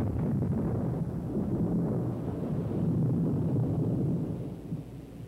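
Rolling thunder: a long, low rumble that swells in and dies away near the end.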